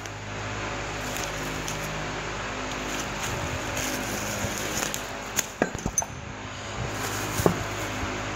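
Steady low machine hum with a few sharp clicks and taps a little past halfway and one more near the end, as a new perforated metal transmission filter is unwrapped from paper towel and handled.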